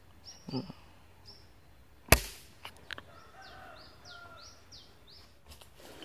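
A single sharp crack of a Sharp Tiger pump air rifle firing about two seconds in, the shot that hits the squirrel. Short, high, down-slurred chirps repeat before and after the shot.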